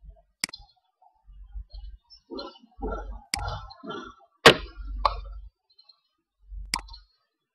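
Computer mouse clicking, about five sharp single clicks spread over several seconds, the loudest one about halfway through.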